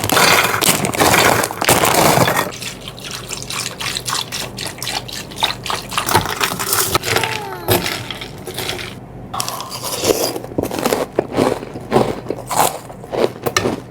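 Something poured into a cereal bowl for about two and a half seconds, then a long run of short clicks and crunches as the cereal is eaten with a spoon.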